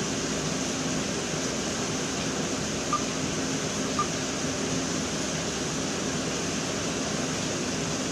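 Steady hiss and hum of background noise, like a fan, with no ringtone or voice in it. Two brief faint blips come about a second apart near the middle.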